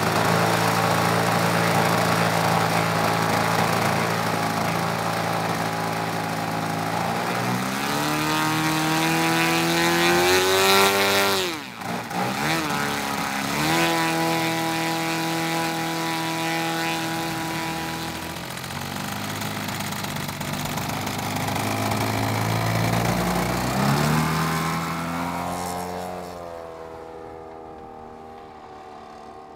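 Large petrol engine of a 50%-scale clipped-wing Piper Cub RC model running while the plane is held on the ground, revved up and dropped back a couple of times. It grows fainter near the end as the plane flies away.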